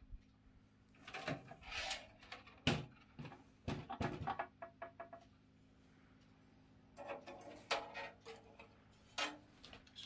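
Knocking and rattling of a steel computer tower case being handled and stood upright while the thin metal I/O shield is pushed into its cut-out at the back. The sounds come in two bursts of uneven knocks, with a faint steady low hum underneath.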